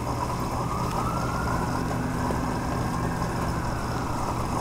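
Steady low mechanical hum, with a faint single tone that rises slowly and then falls again over a few seconds.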